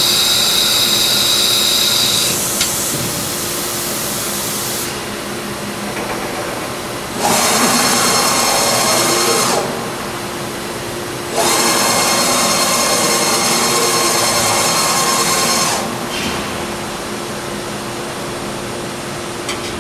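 Hwacheon D2-5AX machining centre's automatic work changer in its cycle: a steady machine hum with three long bursts of loud hissing, a few seconds each, as the shuttle arm moves a pallet along its rails between the storage carousel and the machine.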